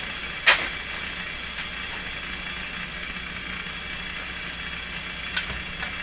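Vintage Telefunken Salzburg 5094W tube console radio giving a steady hiss and mains hum through its speaker on the AM band, with a sharp crackle about half a second in and a few fainter clicks after.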